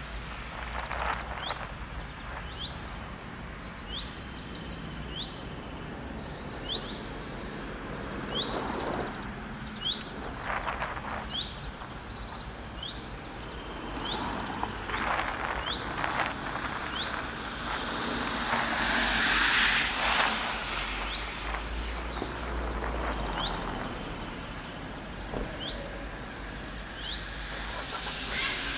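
Small birds chirping over and over, with short quick downward-sweeping calls, over a steady background of road traffic. Cars pass now and then, the loudest going by about two-thirds of the way in.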